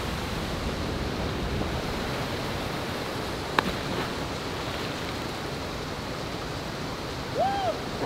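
Steady rush of a waterfall pouring into its pool. About three and a half seconds in, a single sharp splash as a person jumping from the falls hits the water, and near the end a short rising-and-falling vocal call.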